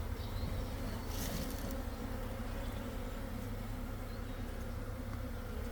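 Honey bees of a nuc colony buzzing in a steady, unbroken hum.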